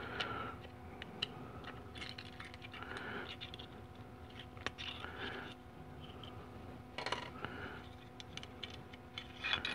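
Small metal clicks and light scrapes as the snap ring (E-clip) is worked off a 700R4 transmission's 2-4 band servo and its apply pin is pulled out. A faint steady hum runs underneath.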